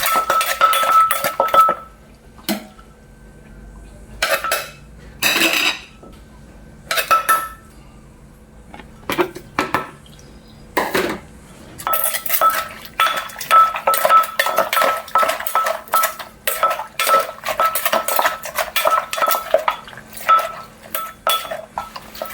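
Som tam being worked in a mortar with a pestle and spoon: rapid clinking and knocking, each strike carrying a ringing note. The strikes thin out to a few scattered knocks from about two seconds in, then pick up again about twelve seconds in.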